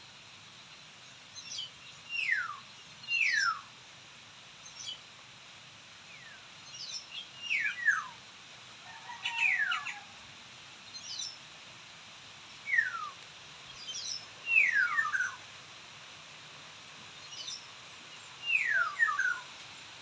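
A bird calling over and over with quick falling whistles, each sweeping down sharply, some doubled, every one to four seconds, with short thin higher notes in between.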